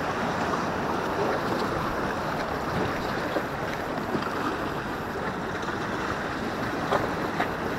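Steady wash of the sea against shore rocks, with some wind noise on the microphone.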